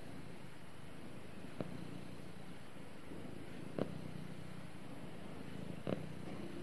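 Orange tabby cat purring steadily with a low rumble while being stroked on the head. Short soft clicks come about every two seconds.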